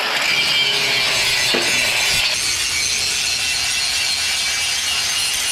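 A handheld power tool running steadily, a continuous high rasping noise.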